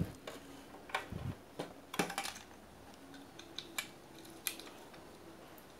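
Scattered light clicks and taps of a soldering iron and a CRT TV circuit board being handled, with a low knock about a second in.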